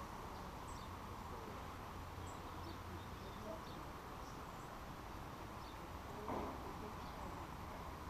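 Outdoor ambience at a pond: a steady faint hiss and low rumble with scattered short, high bird chirps, and a brief knock a little after six seconds in.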